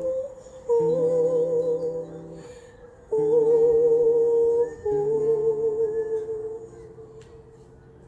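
Music: a woman's voice humming long held notes with vibrato over sustained chords, in several phrases that each start together with the chord and fade away, the last fading out near the end.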